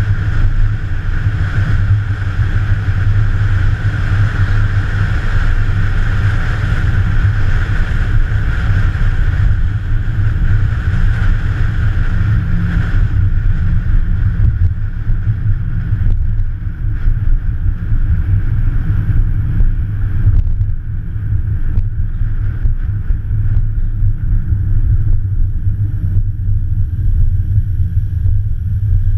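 Steady low rumble of car engines running, with a higher hiss that fades away about halfway through.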